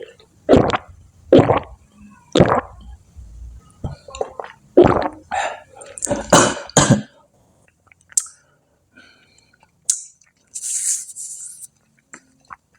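Close-miked mouth sounds of eating and swallowing: a run of short, loud bursts in the first seven seconds, then fainter scattered sounds and a brief hiss near the end.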